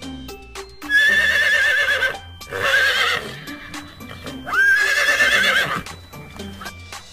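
Horses neighing: three long whinnies with a quavering, wavering pitch, over background music.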